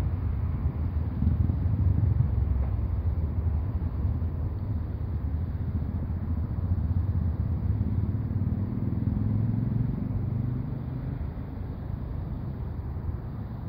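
Motorcycle engine running, a low uneven rumble that eases off slightly near the end.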